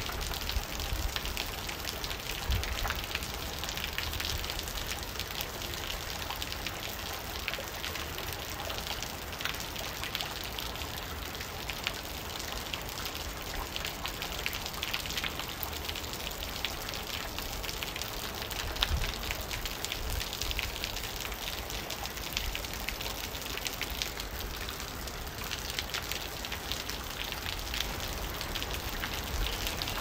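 Steady heavy rain, dense drops splashing onto a wet surface.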